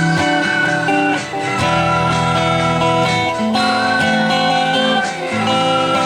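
Guitar-led music: chords and a bass line under a held, slightly wavering lead melody.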